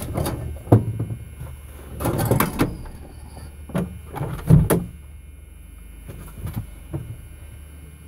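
Knocks and clatters of tools and supplies being moved about while rummaging on a work van's shelving, the loudest about four and a half seconds in, over a steady low hum.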